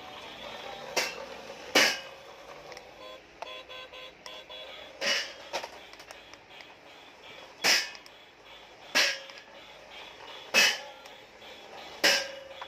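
Toy remote-control stunt car knocking on a hard tiled floor as it drives, flips and tumbles: about eight sharp plastic knocks at irregular intervals. Faint steady tones run underneath.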